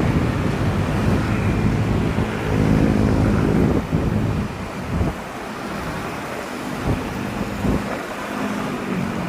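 Road traffic: a motor vehicle's engine running close by, loudest about three seconds in, then fading to a steadier, quieter traffic hum with a few short low thumps.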